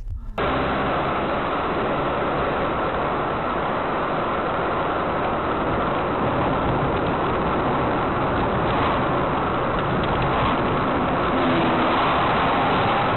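Steady road, wind and engine noise of a moving car, picked up by a dashcam's microphone as an even rushing hiss. It starts abruptly about half a second in.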